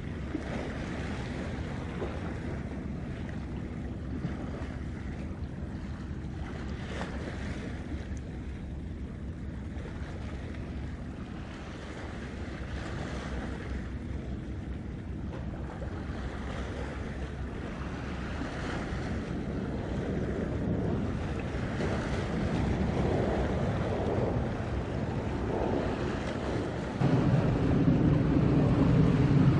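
Low drone of the 90 m container ship HARUKAZE's engine as it passes, with wind on the microphone and water wash. The sound grows louder over the last ten seconds and steps up sharply near the end as the ship comes closest.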